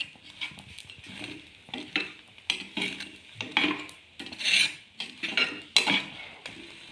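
A spatula pressing and scraping a slice of egg-coated bread against an aluminium pan, in a series of short, irregular scraping strokes; the strongest come about halfway through and again near the end.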